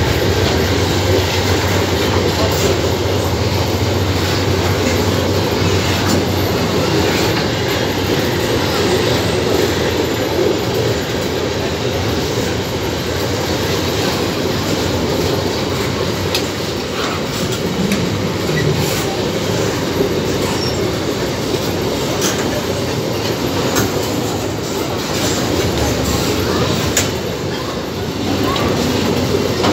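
Empty ore train of steel gondola wagons rolling past at speed: a steady rumble of wheels on the rails, with scattered clicks and clanks.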